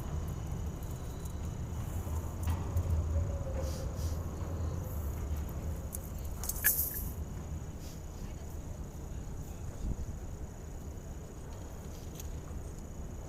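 Outdoor city-square ambience: a steady low rumble with a thin, steady high-pitched tone over it. Several short sharp clicks break through, the loudest about halfway through.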